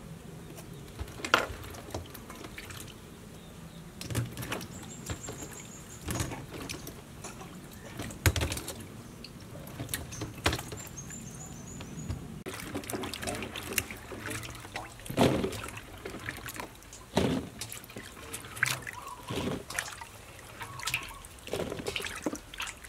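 Water sloshing and dripping as small Thai eggplants are washed by hand in a steel bowl of water, with irregular knocks and splashes as handfuls are lifted out and dropped into a plastic colander.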